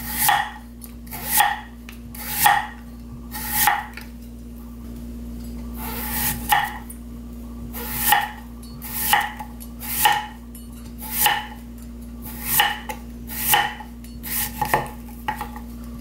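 Kitchen knife slicing a Korean radish into thin rounds, each cut ending in a knock on a thick round wooden chopping block, about one cut a second with a pause of about two seconds a few seconds in.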